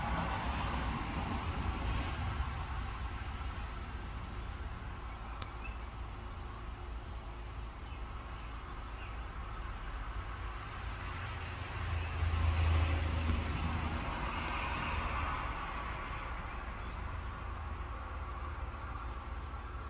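Outdoor ambience: an insect chirping steadily in short high-pitched chirps, a few a second, over a low rumble that swells about twelve seconds in.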